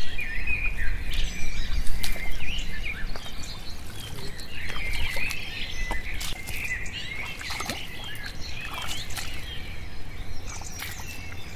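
Small birds chirping and twittering throughout, many short calls overlapping, with scattered clicks and a low rumble that dies away after the first few seconds.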